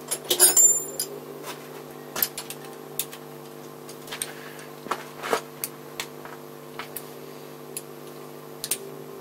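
Irregular sharp clicks and light knocks over a steady low hum. The loudest cluster, with a brief high metallic ring, comes about half a second in.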